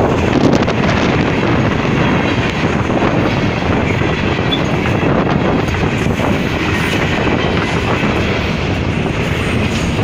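Freight train rolling past, its wheels running steadily on the rails, with no horn sounding.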